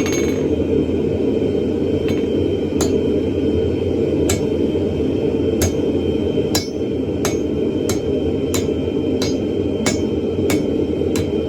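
About a dozen sharp, ringing hammer blows on hot railcar-spring steel at the anvil. They are spaced out at first, then settle into a steady beat of about one every two-thirds of a second. A steady low roar runs underneath.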